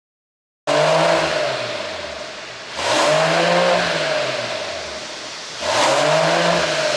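Mercedes-AMG GT 43's turbocharged inline-six revved three times, each rev rising quickly and then falling away over about two seconds; the engine runs an ECU tune meant to add exhaust pops. The sound starts abruptly about a second in.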